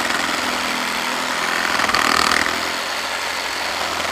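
Meterk 20V cordless reciprocating saw running steadily as it cuts through a piece of oak, getting briefly louder about two seconds in.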